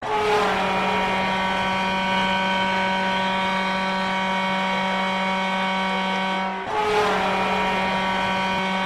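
Lloydminster Bobcats' ice hockey goal horn blowing one long, steady blast, stopping for a moment about seven seconds in, then sounding again.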